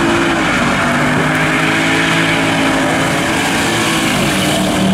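Mercedes-Benz estate car's engine revving hard during a burnout, its pitch rising and falling, over the noise of the rear tyres spinning on the asphalt.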